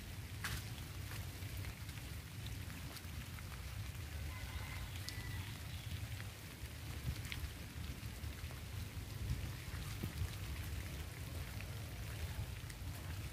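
Light rain pattering and dripping on leaves, with scattered sharp drip clicks over a steady low rumble.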